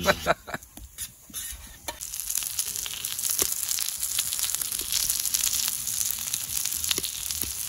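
Meat and pepper skewers sizzling on the hot plancha of a wood-fired camp stove, a steady crackling hiss full of fine pops that sets in about two seconds in.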